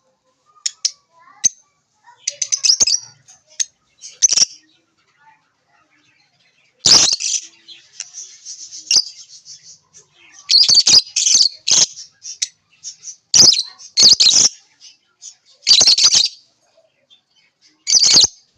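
Lovebirds chirping: sharp high-pitched chirps in irregular bursts, several of them loud and screechy, with a softer continuous twittering stretch partway through.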